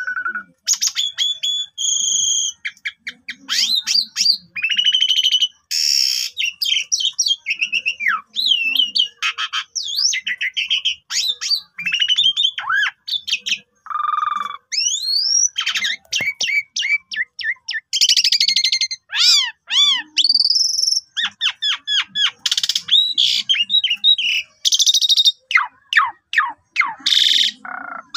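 Asian pied starling (jalak suren) singing a long, varied song of whistles, rising and falling glides and rasping chatter, in quick phrases with scarcely a pause.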